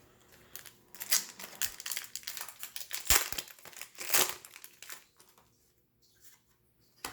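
Foil wrapper of a Magic: The Gathering card pack crinkling as it is handled and torn open, a run of crackles lasting a few seconds, loudest about three and four seconds in, then a single sharp click near the end.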